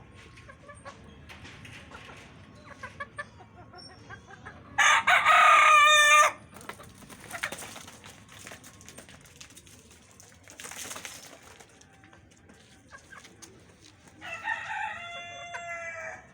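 A rooster crows loudly once, about five seconds in, and a second, fainter crow comes near the end, with hens clucking softly in between.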